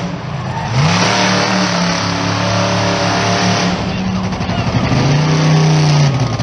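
Monster truck engine revving hard: the engine note climbs about a second in and holds high for a few seconds, then rises and drops again near the end.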